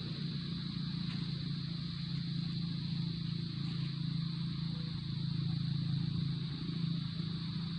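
Steady outdoor drone: an even, high insect buzz over a constant low hum.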